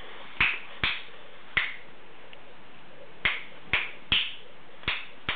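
Finger snaps close to a LEGO Mindstorms robot, about eight sharp clicks in small groups with a pause of over a second in the middle, made to trigger the robot's sound sensor.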